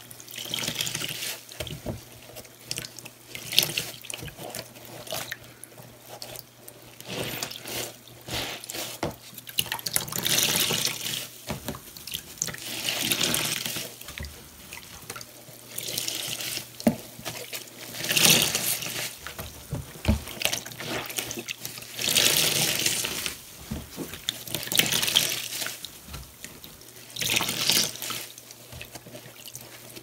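Wet foam sponges being squeezed and rinsed by hand in a basin of soapy water, the water splashing and dripping out in repeated bursts about every two to three seconds.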